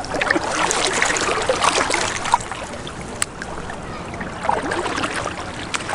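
Lake water splashing and trickling from a stand-up paddle blade stroking through the water.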